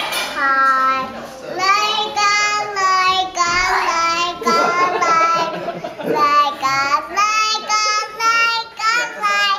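Young child singing in a high voice, a string of short sung notes with brief breaks between them.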